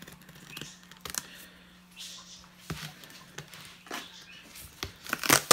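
Cardboard shipping box being handled: scattered light taps, scrapes and rustles of cardboard, with a few louder sharp knocks near the end.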